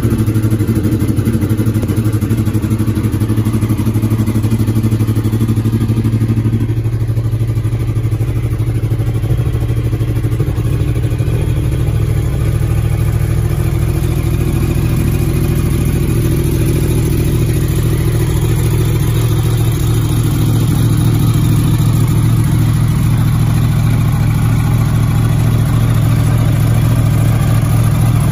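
Yamaha sport bike's engine idling steadily in neutral.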